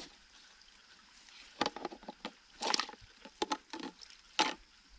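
Water splashing: a run of short splashes and drips, about seven or eight in the second half, with one slightly longer slosh a little before three seconds in.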